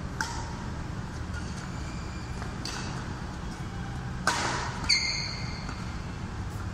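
A badminton rally: a racket strikes the shuttlecock three times, sharp hits a couple of seconds apart, the loudest a bit over four seconds in. Shoes give a short high squeak on the court mat just before five seconds, over a steady low hum.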